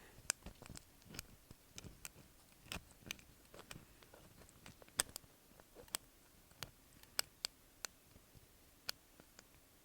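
Small, sharp clicks at irregular intervals, one to three a second, some louder than others: a lock pick and tension wrench working the pins inside a doorknob lock, heard close up.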